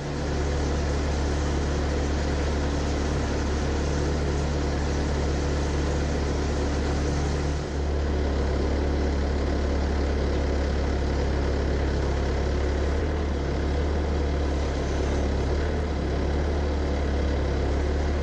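An engine running steadily with a deep, low drone, with a brief dip in level about eight seconds in.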